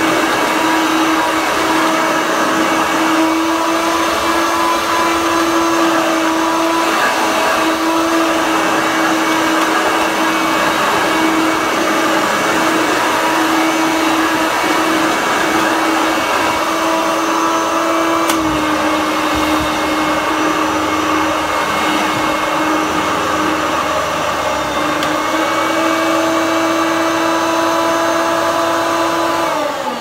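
Hoover Turbomaster upright vacuum cleaner running steadily with a whining motor tone. Just before the end the motor winds down and its pitch falls.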